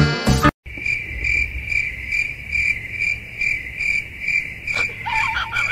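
A snatch of acoustic guitar music cuts off about half a second in. After that a cricket chirps steadily, about two chirps a second. Near the end there is a click and a few short squeaky sounds.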